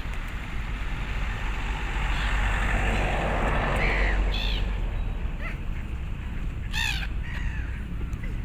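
Birds calling at a pond, a few short, harsh calls, the clearest near the end. A rushing noise swells and fades in the middle, over a steady low rumble.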